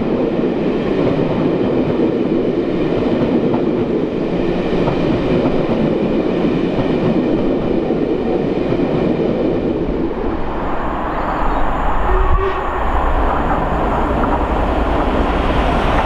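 Steam-hauled passenger coaches rolling past below at speed, a steady rail rumble. About ten seconds in the sound changes to a deeper rumble as a steam locomotive and its train come through at speed, with a sharp click a little later.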